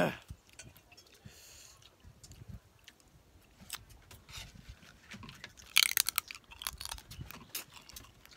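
Close-up chewing and crunching of rice-field crab: many small sharp crunches of shell between the teeth. A louder hiss comes about six seconds in.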